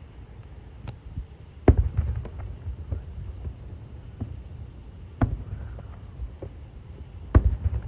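Distant fireworks going off: three booms, about two seconds in, past the middle and near the end, each followed by a short trail of smaller cracks and echoes.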